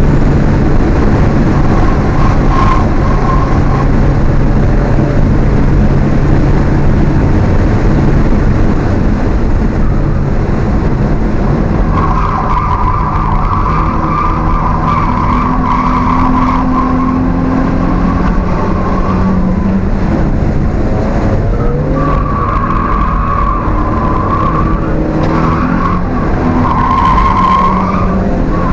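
Alfa Romeo 1750's twin-cam four-cylinder engine running hard, heard onboard at racing speed. From about a third of the way in, the tyres squeal through corners in several stretches while the engine note rises and falls.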